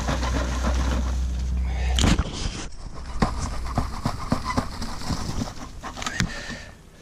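Soil being dug and a weed clump with its bulbs pulled up by hand, giving many short crackles and snaps of roots and earth. A low rumble runs under the first couple of seconds.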